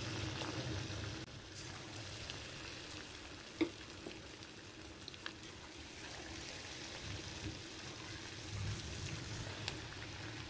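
Marinated chicken pieces deep-frying in hot oil in a kadai, a steady sizzle, with a few light sharp clicks, the loudest about three and a half seconds in.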